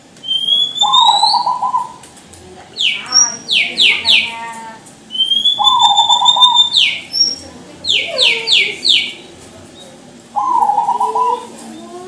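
Caged zebra dove (perkutut) singing, three short cooing phrases about five seconds apart. Another bird's high rising whistles and two bursts of quick falling chirps come in between.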